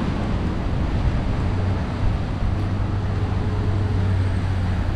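Steady city street traffic noise on wet pavement, with a low engine-like hum that grows stronger about a second and a half in.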